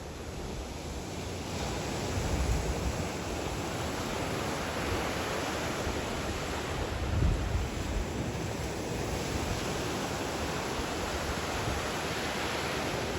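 Black Sea surf: a steady rush of breaking waves that grows louder about two seconds in, with low rumbling swells twice, as wind hits the microphone.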